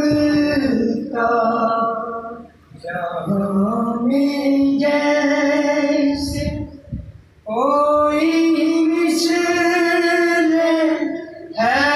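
A man singing a manqbat, a devotional poem, unaccompanied in a fairly high voice. He sings three long held phrases, with short breaks about two and a half, seven and eleven seconds in.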